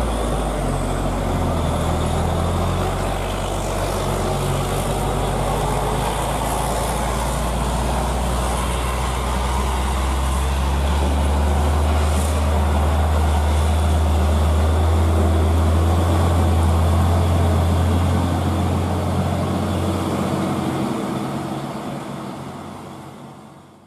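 Heavy diesel truck engine running under load as a loaded six-wheel truck pulls away round a bend: a steady low drone that fades out near the end.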